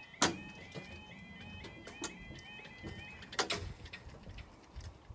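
Railway level crossing's audible warning alarm sounding a rapid repeating two-tone yodel, about three cycles a second, while the barriers come down; it stops about three seconds in. Several sharp clicks and knocks sound over it, the loudest right at the start.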